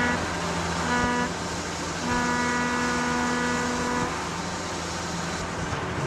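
Cargo ship's horn sounding as the ship leaves its berth: the tail of one blast, a short blast about a second in, then a long blast of about two seconds. A steady low hum runs underneath.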